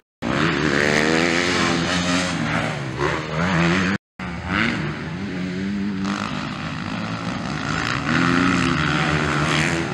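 Motocross dirt bike engines revving, their pitch rising and falling as the bikes accelerate out of corners and over jumps. The sound drops out briefly about four seconds in.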